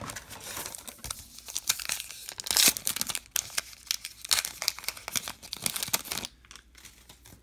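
A baseball card pack's crimped wrapper being torn open and crinkled in the hands, a dense crackling with sharp loud crackles about two and a half seconds in; it dies down about six seconds in as the cards are slid out.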